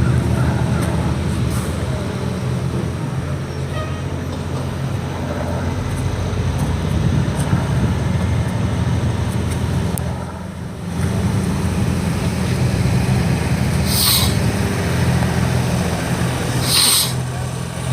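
A nearby vehicle engine running steadily at a low idle, dipping briefly about halfway through, with two short hisses near the end.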